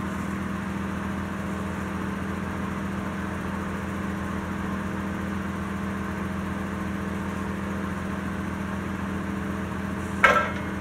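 Allis-Chalmers 6000 lb forklift engine idling steadily, with one brief, loud sharp noise near the end.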